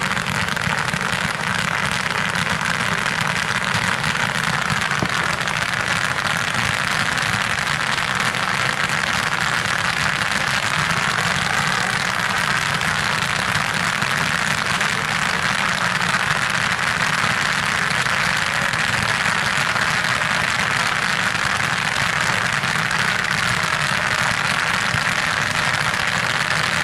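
A row of ground-level fireworks fountains burning together, throwing crackling stars: a dense, unbroken crackle that stays steady and loud.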